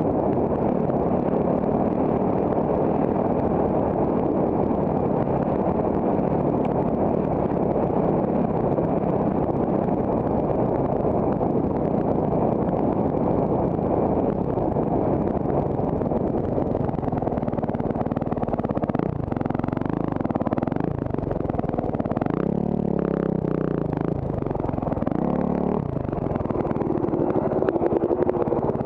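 Honda CRF450RX dirt bike's single-cylinder four-stroke engine running under way, with wind on the microphone. In the last third the engine note rises and falls as the throttle is worked.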